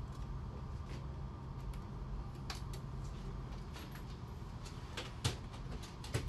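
Steady low hum of an aircraft cabin, with a few scattered clicks and knocks as medical equipment on the stretcher units is handled. The sharpest knock comes about five seconds in.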